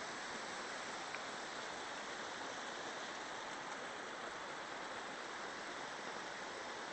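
Steady rush of running water, an even hiss that holds at one level throughout.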